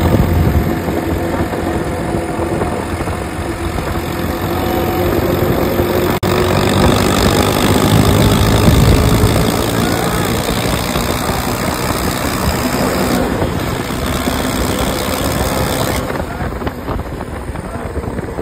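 Diesel tractor engine running hard at high revs, loud and steady, with a brief break about six seconds in.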